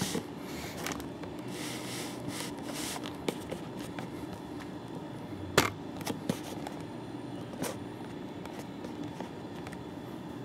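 Quiet room tone with a steady low hum, broken by a few short clicks and knocks, the loudest about five and a half seconds in.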